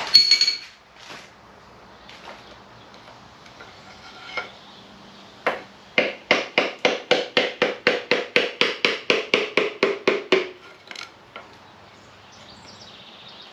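Hand tools working on the engine's connecting-rod bolts: a single metallic click, then a run of about twenty evenly spaced, ringing metallic clicks at about five a second that stops suddenly.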